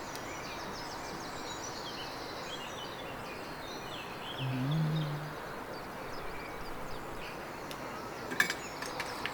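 Steady background hiss with faint bird chirps. A short low hum of a voice comes about halfway through, and a couple of small sharp clicks near the end.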